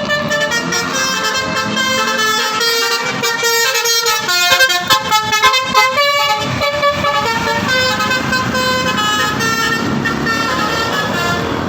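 Bus 'telolet' multi-tone musical air horn playing a tune of short notes that jump in pitch, with rapid note changes and the loudest blasts around the middle, over the bus's engine rumble.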